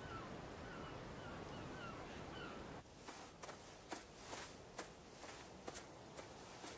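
Outdoor countryside ambience with a bird calling in short repeated chirps, about two a second. The calls stop suddenly about three seconds in and give way to scattered soft taps and rustles.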